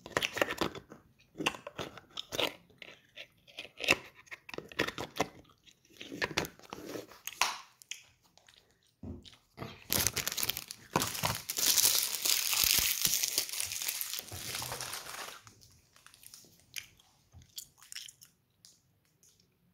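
Sweets being chewed and crunched close to the microphone, with a plastic sweet wrapper crinkling. Many short crackles and clicks, then a dense stretch of crackling about halfway through that lasts around five seconds.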